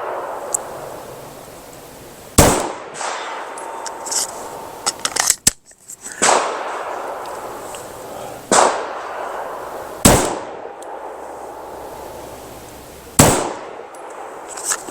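Five gunshots a few seconds apart, each followed by a long decaying echo, with a cluster of smaller clicks and pops between the first and second shots.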